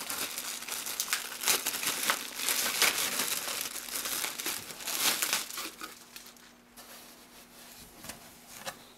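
Crinkling and rustling of the wrapping as it is opened and pulled off a folded T-shirt, dying down about six seconds in.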